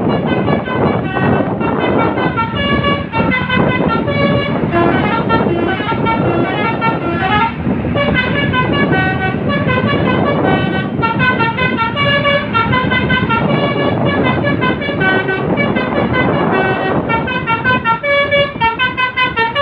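Basuri telolet bus horn: a set of musical horns sounding quick runs of changing notes, melody after melody without a break, over a constant bed of noise.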